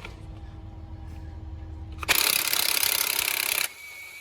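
Cordless impact wrench hammering on the crankshaft pulley bolt of a Honda B16A engine to break it loose, a loud rapid burst lasting about a second and a half that starts about two seconds in and stops abruptly, followed by a faint thin whine.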